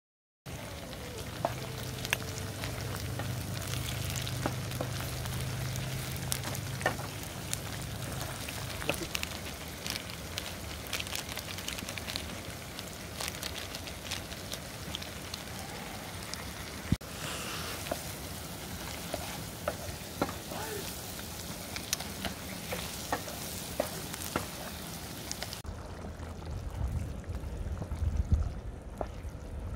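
Onions and spices sizzling in hot oil in a frying pan on a portable gas stove, a steady frying hiss with frequent light clicks and scrapes of a wooden spatula stirring against the pan.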